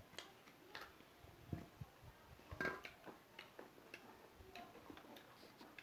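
Eating sounds: faint, irregular clicks and smacks of someone chewing a meal.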